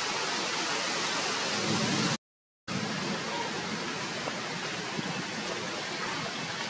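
A steady rushing hiss, broken by a dropout to silence lasting about half a second just after two seconds in.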